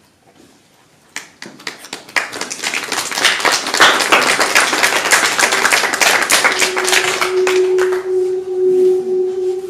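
Audience applauding: a few claps about a second in, building quickly into full applause. Near the end a steady held musical note comes in under the clapping.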